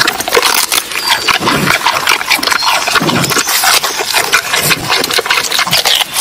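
Giant panda crunching and chewing a bamboo shoot, a dense run of crisp crunches.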